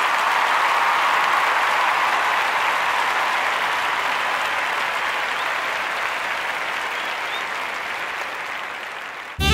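Crowd applause, dense and steady at first, then slowly fading.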